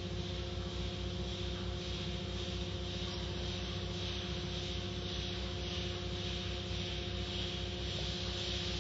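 Automatic car wash running: a steady hiss of water spray and cloth brushes washing over a car, with a steady hum from the machinery's motors.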